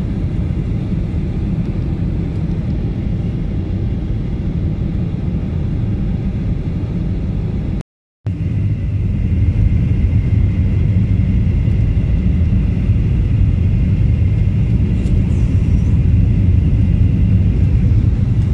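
Steady rumble of an airliner's jet engines and airflow, heard from inside the cabin. It cuts out briefly about eight seconds in, then returns a little louder, with a faint high whine over it.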